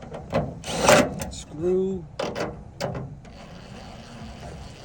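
Tailgate latch parts being handled and fitted: a scraping rub about a second in and several sharp mechanical clicks over the first three seconds.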